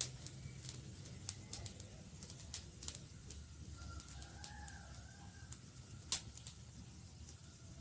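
Campfire crackling: irregular sharp pops and snaps over a low steady rumble of the burning fire, with one much louder pop about six seconds in. A faint short call rising and falling in pitch sounds in the background a little after four seconds.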